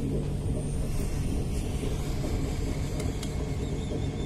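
Hot-air rework station blowing a steady low rush of air with a hum, its nozzle heating a shorted diode to desolder it from a hard-disk circuit board.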